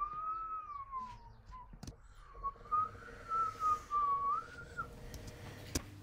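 A person whistling a mock bird courtship call: two wavering phrases held near one pitch, a short rise-and-fall and then a longer warbling one. A sharp click comes near the end.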